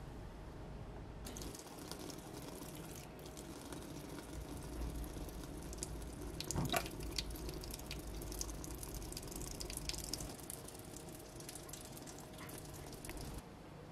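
Water splashing and dripping as hands peel the charred skin off a roasted tomato in a bowl of water, with small wet clicks and one louder knock about halfway through.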